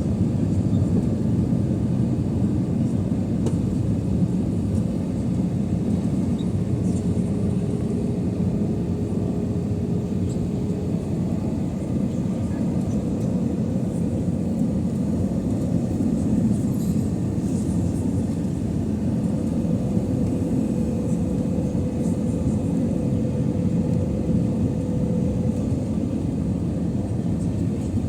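Lufthansa Airbus A320 airliner on approach: a steady, even rumble of jet engines and airflow. A faint hum sounds over it twice, for several seconds each time.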